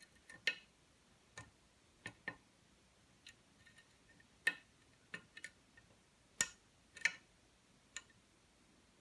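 Sharp metallic clicks of a lock pick working the pins of a Texas Jim custom challenge lock under tension: about a dozen irregular clicks as pins are lifted and set, the loudest two about six and a half and seven seconds in.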